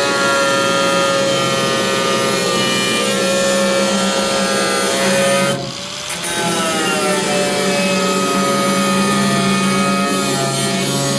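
Power tool cutting through steel truck-bed sheet metal, its motor whining steadily under load. It stops briefly about halfway through, then spins back up.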